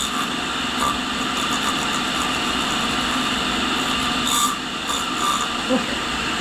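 Tool and cutter grinder running, with an abrasive dressing stick held against the edge of its spinning reinforced cutoff wheel to dress it: a steady grinding hiss, with brief sharper scrapes about four and a half and five seconds in.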